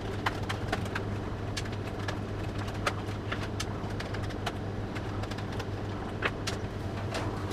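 Screwdriver taking out the screws that hold a power supply in a metal PC case: a scatter of small, irregular clicks and ticks over a steady low hum.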